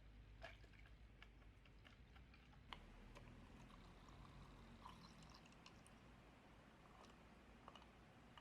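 Near silence: quiet room tone with a low hum and a few faint, scattered small clicks and taps.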